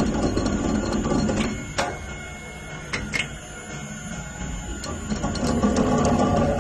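Automatic winding machine for motor coils (SRF22-2) running with a steady mechanical hum. About two seconds in it quiets, with a few sharp clicks, and it picks back up near the end.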